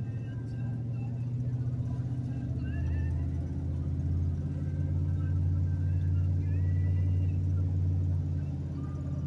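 Engine and road noise heard from inside a moving car's cab: a steady low drone that grows slightly louder midway, then eases off near the end.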